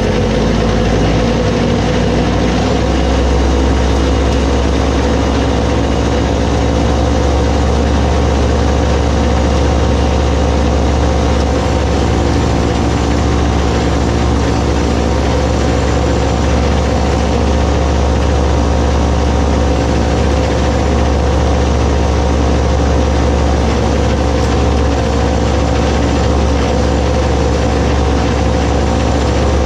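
Compact tractor engine running steadily, driving a front-mounted snowblower whose auger is spinning. The low rumble grows a little stronger about three seconds in, then holds steady.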